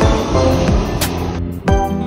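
Background music with a steady beat laid over the broad noise of a low-flying T'way Air jet airliner on landing approach; the jet noise cuts off suddenly about one and a half seconds in, leaving the music alone.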